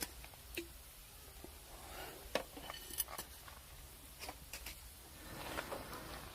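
Wood campfire crackling, with irregular sharp pops and snaps; the loudest pops come about two and a half and three seconds in.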